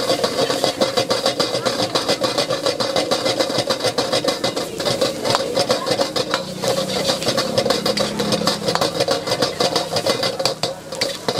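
High-pressure gas wok burner roaring steadily, with rapid, constant clattering and scraping of cooking utensils on the wok.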